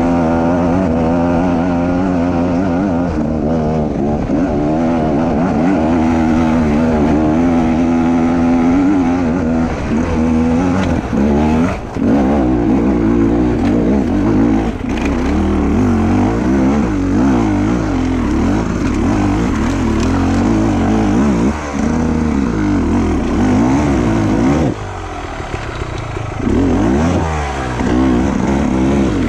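Enduro dirt bike engine running under load on a rough trail, its pitch rising and falling with the throttle. The level dips briefly a few times and eases off for a couple of seconds near the end.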